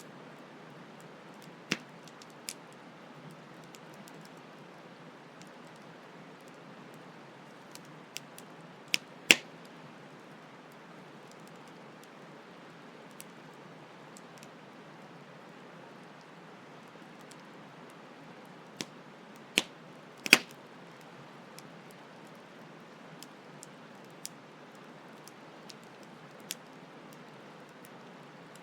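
Campfire crackling: sharp, irregular pops and snaps of burning wood, the loudest about 9 and 20 seconds in, over a steady soft hiss.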